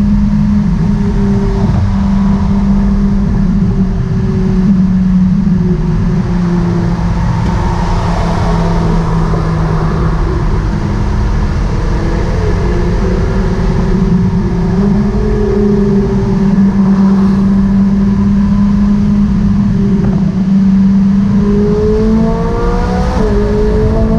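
Ferrari 458 Italia's V8 droning at a steady highway cruise, heard from inside the cabin over tyre and road noise. Near the end it revs up under acceleration, drops briefly at a gear change and climbs again.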